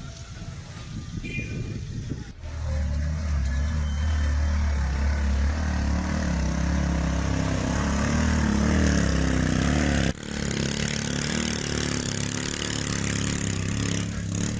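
Small motorcycle engine, as on a Philippine tricycle, running with a steady low hum. Its pitch rises and falls a few seconds in. The sound breaks off about ten seconds in and gives way to a noisier outdoor sound.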